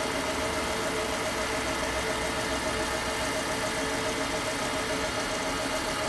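Small wood lathe running at a steady speed, a constant hum with a few held tones over a hiss, as a paper towel rubs friction polish onto the spinning wood to heat and burnish it.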